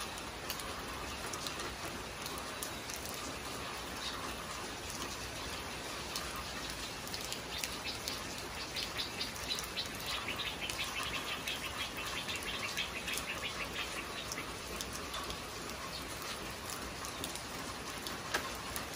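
Steady rain falling, an even hiss of drops on the roof and yard. Through the middle a rapid run of short high chirps sits on top of it.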